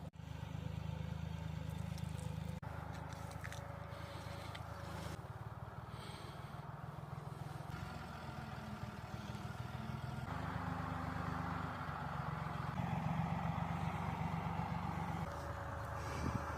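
A vehicle engine running: a steady low hum that shifts a few times.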